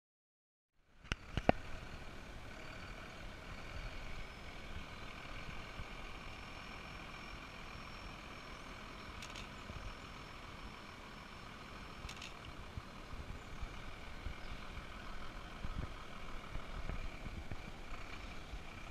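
Diesel engine of an Iveco military lorry running steadily at low speed as it creeps forward, with two sharp clicks about a second in.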